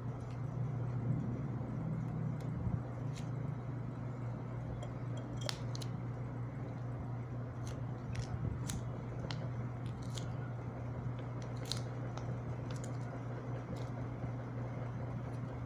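Small plastic sachet of dishwashing liquid squeezed out into a plastic bottle: faint crinkling and scattered small clicks over a steady low hum.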